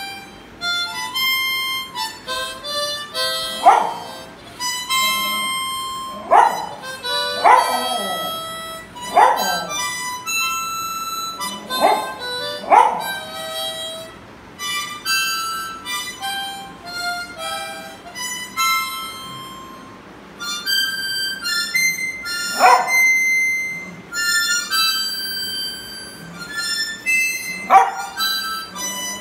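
A harmonica playing a slow tune of held notes while a golden spitz dog howls along in about eight short howls, most of them in the first half.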